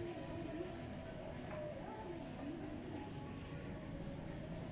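Several quick, faint, high-pitched falling chirps, like a small bird's, in the first two seconds, over a low steady background murmur.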